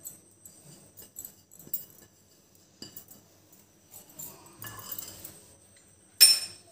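Small clinks and knocks of kitchen dishes being handled: a plate tipping spices into a glass bowl. One louder, sharper clink comes near the end.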